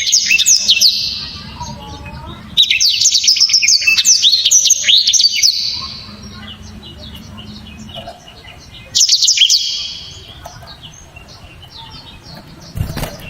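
Black-throated canary (blackthroat) singing in three bursts of fast, high, tightly packed trills and chirps, the longest about three seconds. A single knock comes near the end.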